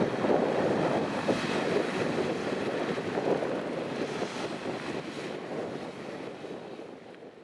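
BK 117 rescue helicopter running after landing: a steady rushing noise from turbines and rotor, with some wind on the microphone, that fades away toward the end.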